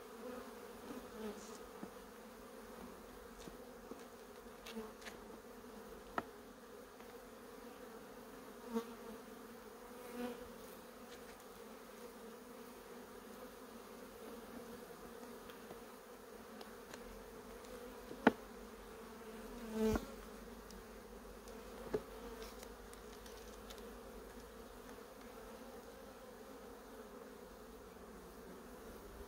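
Honeybees buzzing steadily around an open hive, a low, even hum, with a few sharp clicks and knocks, the loudest about eighteen seconds in.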